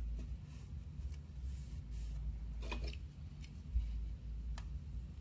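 Hands smoothing and pressing washi tape onto planner paper: soft rubbing and paper rustles with a short scratchy crinkle a little under halfway through and a few small clicks, over a steady low hum.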